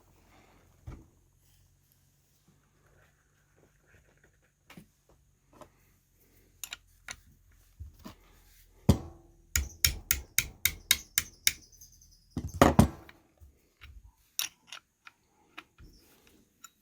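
Hammer taps and metal tool knocks: scattered clicks, then a quick run of about ten sharp taps, roughly five a second, and a louder clatter of knocks about three quarters of the way through, consistent with a punch being struck to mark the differential bearing caps.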